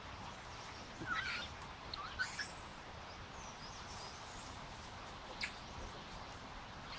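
Short high chirping calls from animals, a cluster about a second in and another about two seconds in, then a single sharp tick about five and a half seconds in, over a steady outdoor background hiss.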